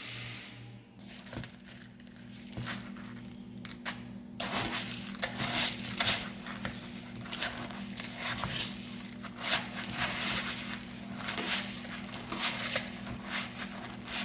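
Crisp puffed cereal crackling and rustling as more is added to a bowl of melted marshmallow and folded in with a spatula. Sparse at first, then a dense run of crunches and scrapes from about four seconds in.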